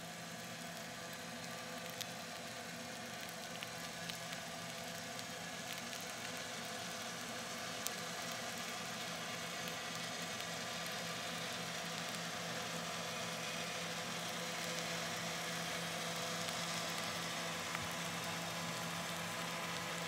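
MSC Grandiosa cruise ship's propellers and machinery heard underwater through a hydrophone: a steady hum with several held tones over a hiss, slowly growing louder as the ship comes in. A few faint clicks are scattered through it.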